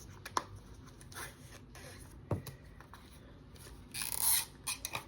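Packaging being handled and opened by hand: soft crinkling and tearing with a few small clicks, and a louder rustle about four seconds in.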